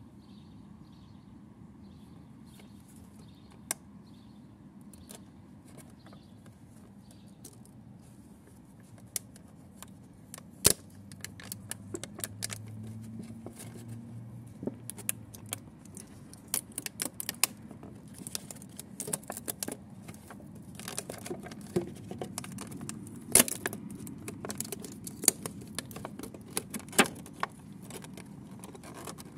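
Clear plastic toy packaging and its cardboard backing being handled and opened, crinkling with sharp, irregular clicks and snaps. A few clicks in the first few seconds, then much busier crackling from about a third of the way in.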